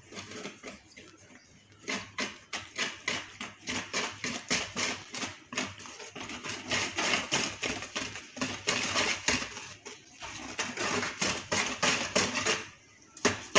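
Wire whisk beating risen, bubbly yeast batter in a bowl to mix in sugar: quick rhythmic strokes, about three or four a second, starting about two seconds in and stopping near the end.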